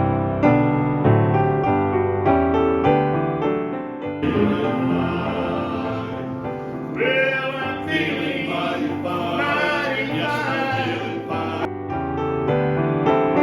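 Piano playing in steady struck chords; from about four seconds in, a singing voice with vibrato joins it. The singing stops near the end, leaving the piano alone.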